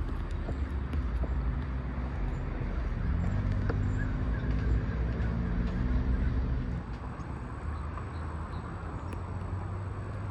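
Motor vehicle engine running with a steady low drone, over a low rumble; the engine sound fades out about seven seconds in.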